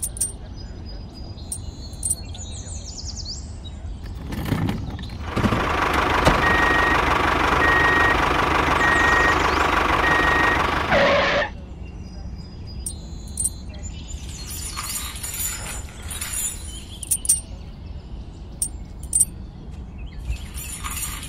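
Small motor of a DIY mini tractor running steadily for about six seconds in the middle, with a short beep repeating over it. Before and after come small metal clicks and knocks as the hitch and tow chain are handled.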